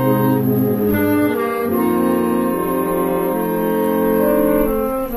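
Concert band of brass and woodwinds, with saxophones, clarinets, trumpets and trombones, playing held chords. The harmony changes about a second and a half in and again at the very end.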